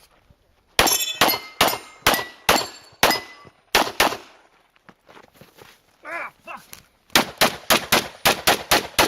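Rapid pistol fire in two strings: about nine shots roughly two to three a second, a lull of a few seconds with a short pitched sound, then about nine faster shots in quick succession.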